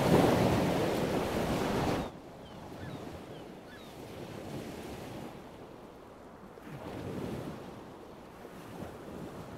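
Ocean waves breaking on the beach, loud, with wind on the microphone. About two seconds in it cuts off suddenly to a quieter wind-and-surf background that swells once more later.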